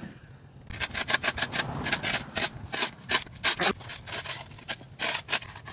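A rake scraping over ground and yard debris in quick, irregular strokes, a few a second.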